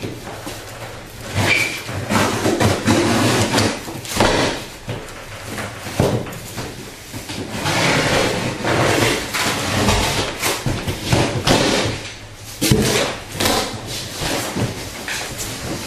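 Cardboard shipping box and packing being handled and pulled apart: irregular rustling and scraping with scattered knocks.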